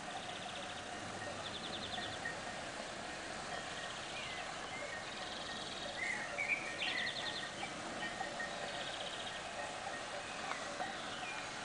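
Outdoor garden ambience: short, high, rapid trills repeat every second or two, with a few bird chirps about six seconds in, over a faint steady background hum.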